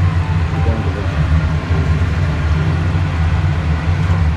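Kitchen range hood exhaust fan running noisily: a steady low hum with an even rush of air.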